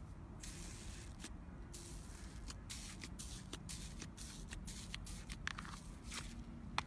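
Slime being squeezed and handled: soft hissing squishes with many small crackling clicks, and one sharper click near the end.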